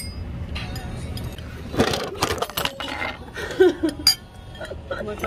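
Metal chopsticks and a spoon clinking against ceramic bowls, then louder clatters and knocks as a mobile phone falls over onto the table.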